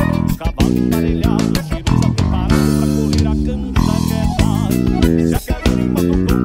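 Vaneira dance music with a Yamaha RBX A2 electric bass playing a plucked, rhythmic bass line. A chord is held for about a second around the middle before the beat picks up again.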